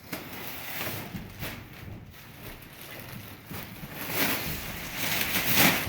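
Rustling and brushing noise of insulation batts being handled and pressed into place, swelling louder twice in the second half.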